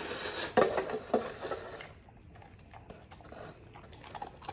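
A dog biting into and chewing a treat. It is louder and crackly over the first two seconds, with two sharp crunches, then fades to faint clicking chews.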